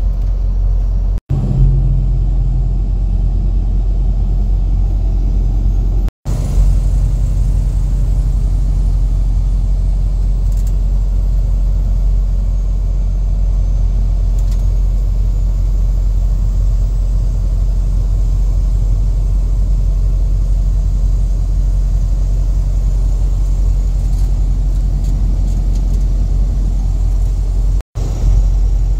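Steady low rumble of a semi-truck cruising on the highway, engine and road noise heard inside the cab. It drops out for an instant three times: about a second in, about six seconds in, and near the end.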